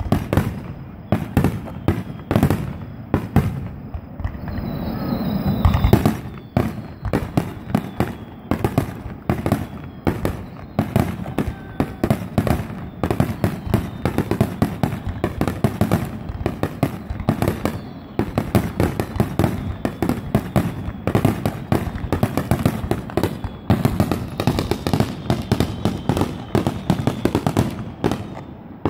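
Fireworks display: a dense, continuous barrage of aerial shells bursting, several bangs a second with crackling. A rushing swell builds around four to six seconds in before the bangs come thick and fast.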